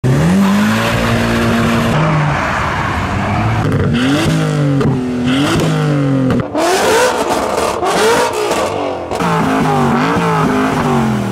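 Modified car engines revving through loud exhausts, one car after another: an engine held at steady revs for the first two seconds, then a string of sharp rev blips, each a quick rise and fall in pitch.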